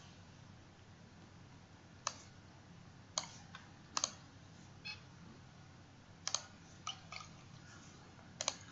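Faint, scattered clicks of a computer mouse, about eight spread unevenly, a few in quick pairs, over a faint steady hiss.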